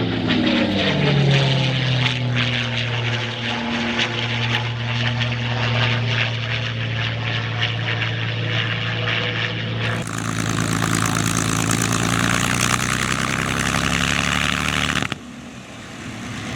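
P-51D Mustang's Packard Merlin V-12 engine in a low flypast, its pitch dropping as it passes and then holding a steady drone. The sound changes abruptly about two-thirds of the way through and drops sharply in level near the end.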